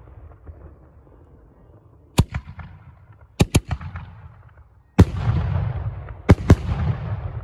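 A firework firing a volley of shots into the sky, with six sharp bangs. One comes about two seconds in, then a quick pair at around three and a half seconds. The loudest comes at five seconds and is followed by a long, fading rumble, and a final pair of bangs follows a second later.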